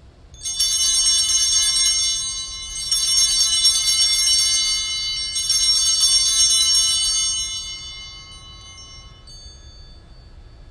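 Altar bells (sanctus bells) rung in three rounds at the elevation of the chalice after the consecration, each round a jangle of several small high-pitched bells, the last fading away.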